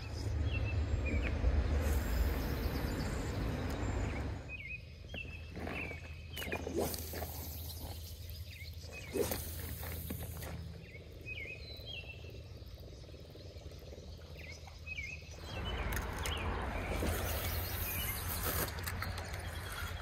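Small birds chirping in short, repeated calls, over a low rumbling noise that is strongest in the first few seconds and again near the end, with one short sharp sound about nine seconds in.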